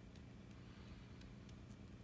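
Near silence: a faint steady low hum with a few faint scattered clicks.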